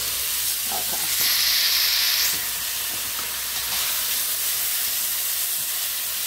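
Sautéing vegetables sizzling in a frying pan, a steady hiss with a louder hissing surge about a second in that lasts about a second.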